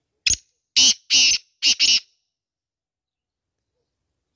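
Black francolin calling: a short harsh note followed by four louder, grating notes in quick succession, all within about two seconds.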